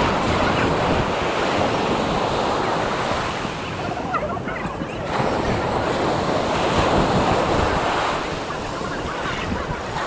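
Ocean surf breaking and washing on a sandy beach, a steady rushing that swells and eases, with wind buffeting the microphone.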